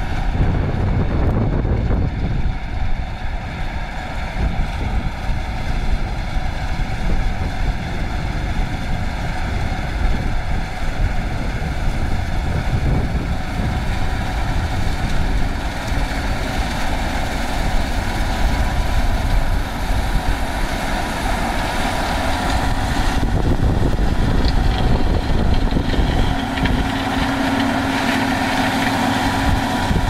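CLAAS Lexion combine harvester running under load while cutting and threshing soybeans. Its engine and threshing machinery make a steady noise that grows a little louder as it draws close, with a steady hum joining in near the end.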